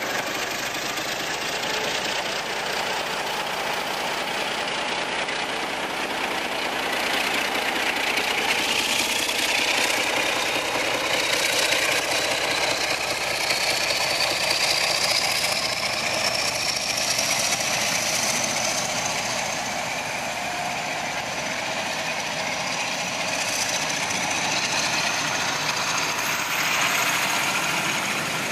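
Class 47 diesel locomotive's Sulzer twelve-cylinder engine working hard as it pulls a loaded passenger train away from a stand, with wheels rumbling over the rails. A high whine rises steadily in pitch over about ten seconds as the train gathers speed.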